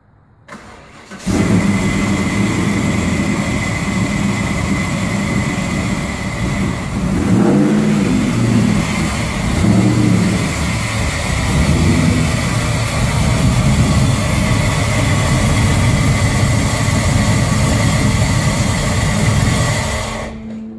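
A Chevrolet Camaro's LS1 V8 runs loudly, starting abruptly about a second in, while the car is driven slowly into the garage. Its engine note rises and falls a little between about 7 and 12 seconds in, then stays steady.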